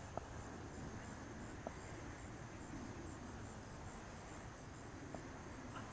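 Faint high-pitched insect chirping, an even pulsing that keeps going, over a low background rumble, with a few faint ticks.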